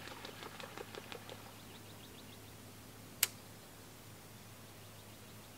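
Fishing reel being cranked to retrieve a jig, ticking rapidly at about six clicks a second and fading out about two seconds in. A single sharp click follows a little past three seconds in.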